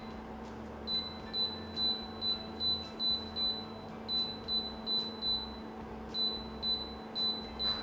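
Control panel of a Unox Bakerlux Shop.Pro LED oven beeping once for each press of the temperature button. Short high beeps come in quick runs of about three a second with brief pauses, as the set temperature is stepped down toward 140.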